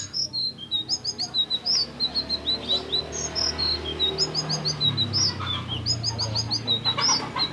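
A selendang biru (sitrun) songbird singing: a lively, continuous run of short high chirps and quick slurred notes, repeated in fast clusters.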